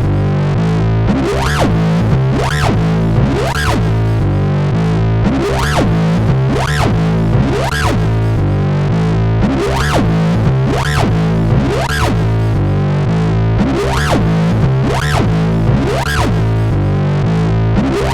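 Distorted sawtooth synthesizer bass playing a looped riff, its tone sweeping bright and back about three times every two seconds over a repeating pattern of bass notes.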